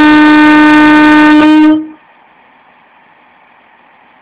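Horn of a British Rail Class 158 diesel multiple unit, loud, holding its low note for nearly two seconds and then cutting off.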